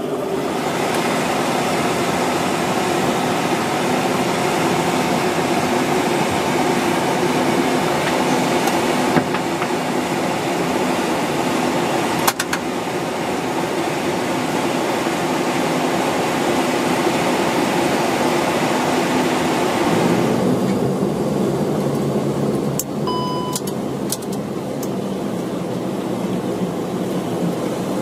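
Steady drone of a Bombardier Dash 8 Q400's turboprop engines heard from inside the flight deck. About two-thirds of the way in, the upper hiss drops away and a lower hum remains. A few short electronic beeps sound shortly after that.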